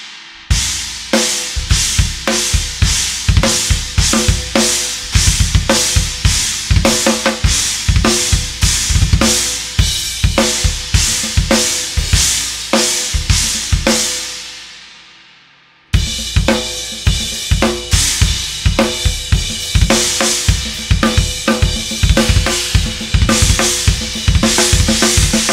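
Drum kit playing a steady groove of kick drum, snare and a china cymbal struck on the beat. About 14 seconds in the playing stops and the china rings out and fades, then a second groove starts abruptly about two seconds later.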